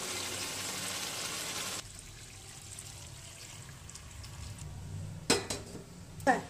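Marinated chicken pieces sizzling in a hot frying pan. The sizzle cuts off abruptly, and a quieter stretch follows as water is poured into the pan from a steel pot, with two sharp, loud hits about a second apart near the end.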